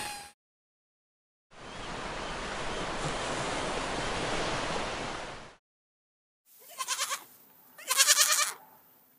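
Surf washing over shore rocks for about four seconds. Then young ibex bleat twice with quavering calls, the second longer and louder.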